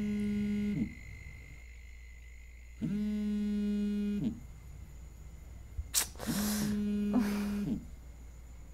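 Mobile phone on vibrate buzzing on a bedside table with an incoming call: three steady buzzes, each about one and a half seconds long, about two seconds apart. Around six seconds in a click and a rustle of bedding come over the third buzz as the sleeper stirs.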